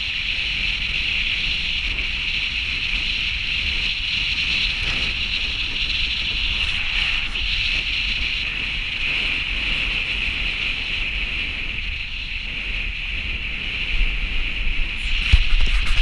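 Steady driving noise of a vehicle on a gravel road: tyre rumble and hiss, with wind noise on the microphone. A few louder bumps and knocks come near the end.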